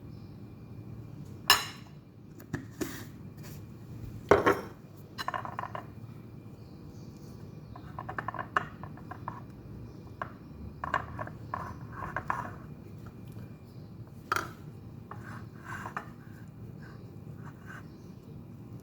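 Dishes and cutlery clinking and knocking at irregular moments, with three sharper knocks and some brief rattling among them, over a steady low hum.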